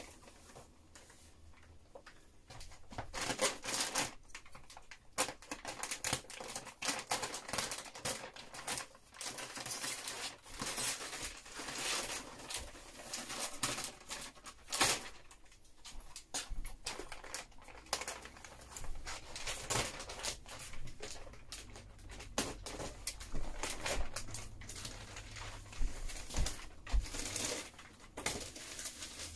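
Thin plastic wrapping crinkling and rustling in irregular crackly bursts as it is pulled and peeled off a mattress.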